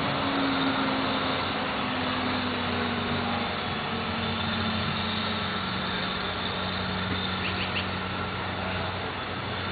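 A vehicle engine running with a steady hum, with three short high chirps about three-quarters of the way through.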